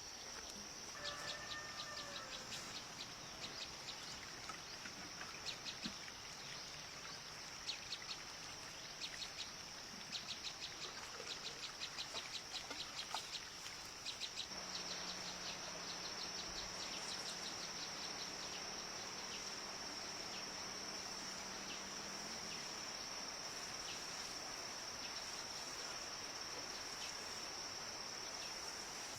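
Outdoor farm ambience: a steady high-pitched insect drone, with trains of quick high chirps and a short pitched bird call about a second in. A low steady hum joins about halfway and stops several seconds later.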